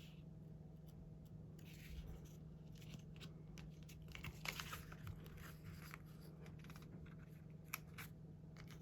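Faint scratching and crinkling of sticker paper being handled and trimmed, with a few small clicks, over a steady low hum.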